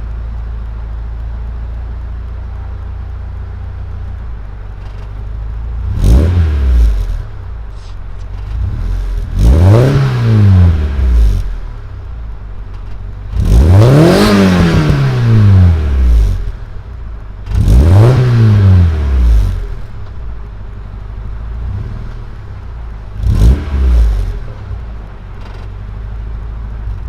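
Honda Integra B18 four-cylinder engine idling through a new Yonaka cat-back exhaust and being revved five times. Each rev rises and falls, the third goes highest, and the exhaust note is deep.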